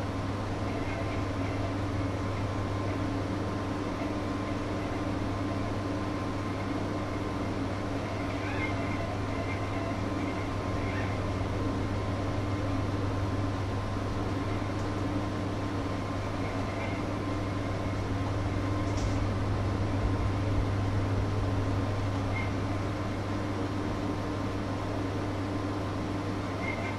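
Steady electrical hum from a running kitchen appliance, a low drone with a higher tone above it, and a few faint small ticks over it.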